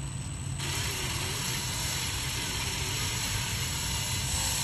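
Cordless drill running steadily in reverse, starting about half a second in. Its 9/64 drill bit is angled in a broken exhaust-manifold bolt so that it bites and backs the bolt out of the engine block.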